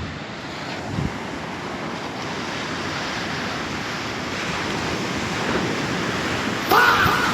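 Sea surf washing onto a beach in a steady rush, with wind on the microphone. A brief, louder call-like sound rises over it near the end.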